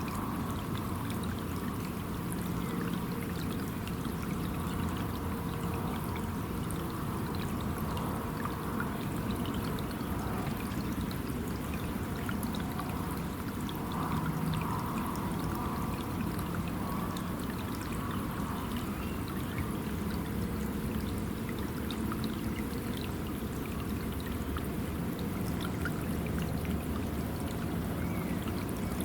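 River water flowing, a steady rushing, pouring sound with some trickling.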